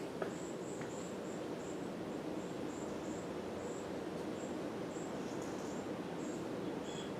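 Fasco Charleston ceiling fan running on high speed: a steady whir with a faint motor hum. Short, faint high-pitched chirps come and go irregularly over it, and there is a light click just at the start.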